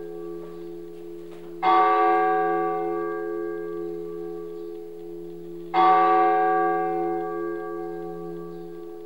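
A deep bell tolling: two strikes about four seconds apart, a bit under two seconds in and about six seconds in, each ringing on and fading slowly over the dying ring of the strike before. A steady low hum runs underneath.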